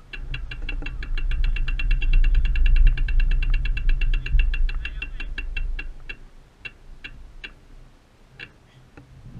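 Bicycle freewheel ratchet ticking fast and evenly as the bike coasts, with wind rumble on the microphone. About six seconds in, the ticking thins to a few single clicks and the rumble fades as the bike slows.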